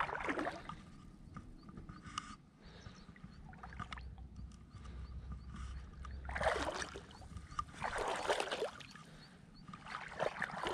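Water splashing and sloshing in the shallows, in several short bursts (one at the start, two in the middle and one near the end), over a steady low rumble of wind on the microphone.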